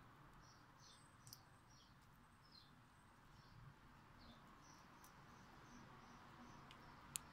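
Near silence: quiet room tone with faint, high, short chirps repeating about twice a second, and two sharp clicks, one about a second in and a louder one near the end.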